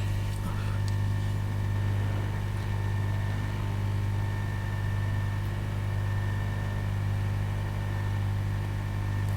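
Steady low electrical hum from running repair-bench equipment, unchanging throughout.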